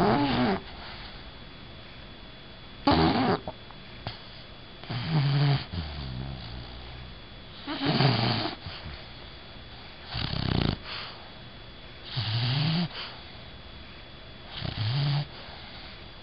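Bulldog snoring while asleep: loud snores about every two and a half seconds, each lasting under a second, with a low pitched note running through several of them.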